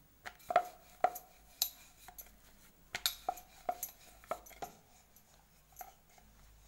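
Wooden rolling pin rolling out chapati dough on a round wooden board, knocking and clacking against the board about twice a second, each knock ringing briefly.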